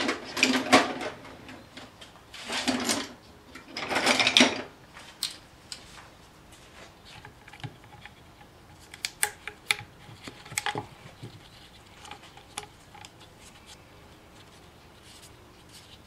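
Pliers working a spring hose clamp and a rubber hose off the plastic brake fluid reservoir of a master cylinder. Three short scraping, rustling bursts come in the first few seconds, then a run of small metallic clicks and taps.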